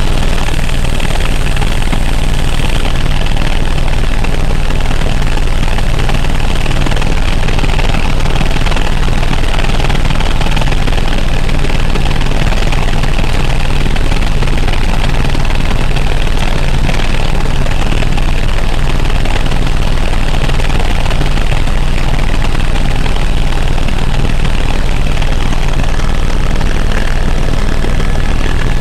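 Helicopter in flight heard from inside the cabin: a loud, steady drone with a constant rushing hiss that does not change.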